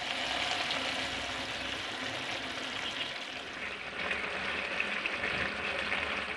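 Papaya slices cooking in coconut milk in a pan, giving a steady sizzle while a spatula stirs them.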